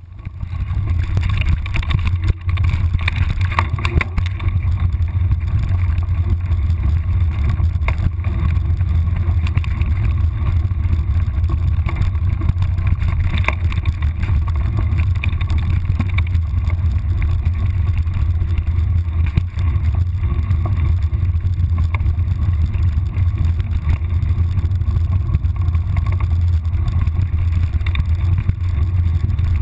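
Steady low rumble of wind buffeting and vibration on a handlebar-mounted camera as a mountain bike is ridden over a dirt trail, with scattered knocks and rattles from bumps.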